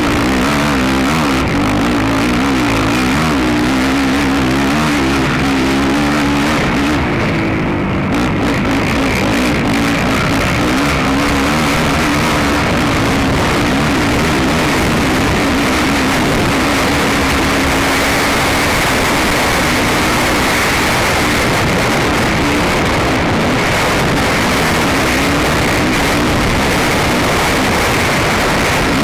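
Racing ATV engine running hard at high revs, heard on board, loud and continuous. Its pitch wavers up and down with the throttle for the first several seconds, then holds steadier.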